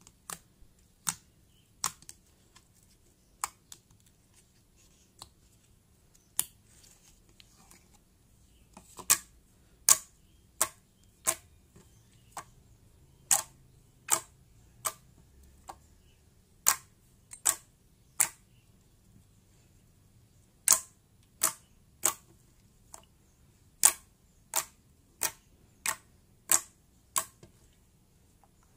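Fingers poking and squeezing thick, glossy slime, making sharp wet pops and clicks, irregularly about once a second and sometimes two in quick succession.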